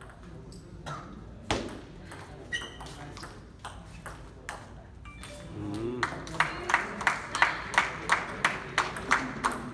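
Table tennis rally: the celluloid-type ball clicking sharply off bats and table. After the point a short shout, then a few seconds of spectators clapping at about three claps a second.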